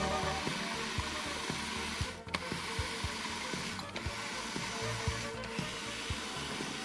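Food processor motor running, grinding toasted hazelnuts, chocolate cookies and butter into a crumb base. The motor dips briefly three times.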